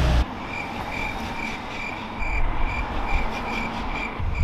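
A car's engine and exhaust rumbling low, getting louder from about two seconds in as it approaches, with a high chirp repeating about three times a second over it.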